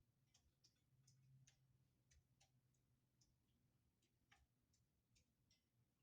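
Near silence: faint, irregular small clicks over a low hum.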